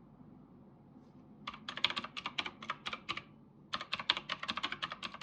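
Typing on a computer keyboard in two quick runs of keystrokes with a short pause between them, starting about a second and a half in.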